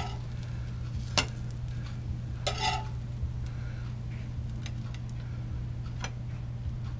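A sharp clink about a second in, then a short scrape near three seconds, as a metal spatula lifts toasted bread slices from a cast iron pan and sets them on a ceramic plate. A few lighter taps follow, over a steady low hum.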